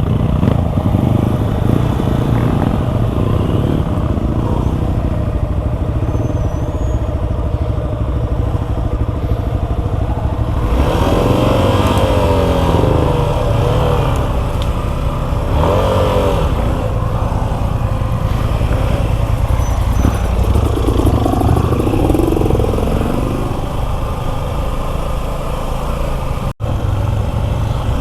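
Motorcycle engines running steadily, with a few rising and falling engine notes partway through. The sound cuts out for an instant near the end.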